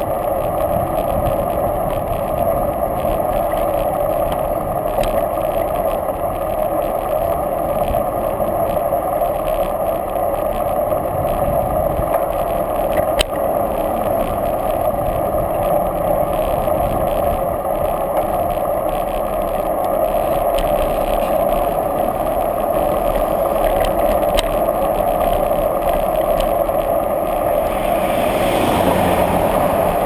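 Steady rushing wind and road noise picked up by a camera mounted on a moving bicycle, dull and even. Near the end an oncoming car passes, adding a broader rush.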